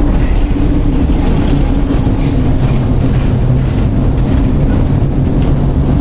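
A container ship labouring in a storm at sea: a loud, steady rumble of wind and breaking sea, with a low hum from the ship's machinery underneath.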